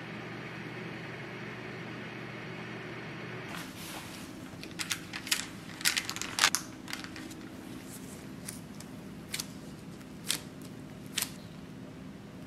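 Microwave oven running with a steady hum while heating a cookie at 500 W. About three and a half seconds in the hum gives way to a cluster of light crackles and ticks from baking-paper sheets being handled on a metal wire cooling rack, then four single ticks about a second apart.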